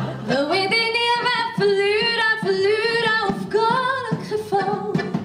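Music with a singing voice: it slides up into long held notes a quarter of a second in and sustains them with vibrato.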